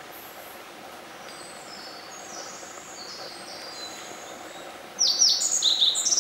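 Black-faced bunting singing: a short, loud phrase of quick, sharp descending notes about five seconds in, with fainter high bird notes in the seconds before, over a steady background hiss.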